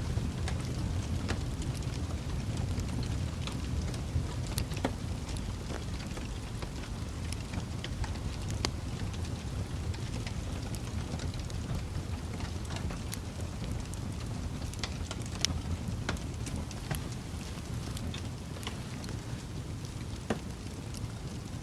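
Wood fire burning with a low, steady rumble and irregular sharp crackles and pops.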